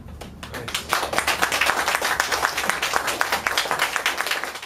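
Audience applauding, the clapping building up over the first second, then cutting off suddenly.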